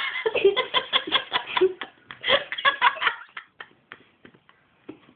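A person laughing in rapid bursts for about three seconds, then tailing off into a few short, scattered laughs.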